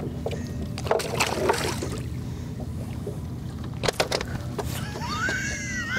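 Steady low rumble of a small fishing boat on the water, with two brief splashy bursts, about a second in and near four seconds in, as a fish is lifted from the water. Near the end comes a high call that rises and then falls.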